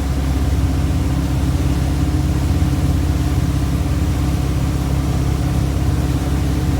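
Boat engine running steadily at about 2,000 RPM under way, its low hum holding an even pitch and level.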